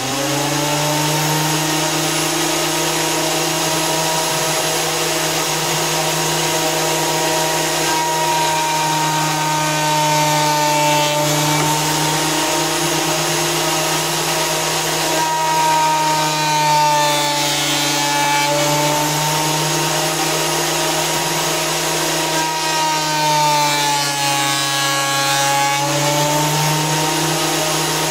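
Fujiyama electric planer running with a steady motor whine. Three times the pitch sags and a rough shaving noise joins in as the blades cut into wood under load.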